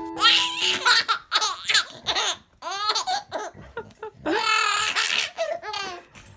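Baby laughing in a string of short, high-pitched bursts, with a longer laugh about four seconds in. Piano music cuts off about half a second in.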